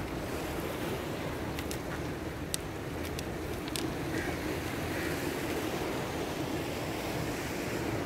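Sea surf washing steadily on the shore, mixed with wind buffeting the microphone. A few faint sharp clicks come in the first half.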